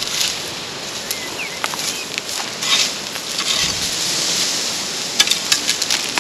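Rustling and crackling of thin fence netting being handled and tied to posts, with a cluster of sharp clicks about five seconds in.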